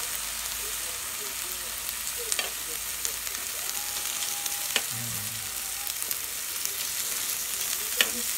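Beef steak and sliced meat sizzling on a hot grill pan, a steady hiss, with a few sharp clicks of metal tongs against the pan, the loudest near the end.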